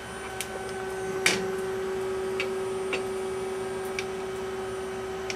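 Steady hum of an idle CyberTec UltraTurn UT250 CNC lathe, one low constant tone, with a few light clicks scattered through, the loudest about a second in.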